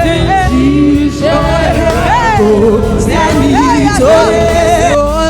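Live gospel praise-and-worship music: sung voices with vocal runs over a full band backing.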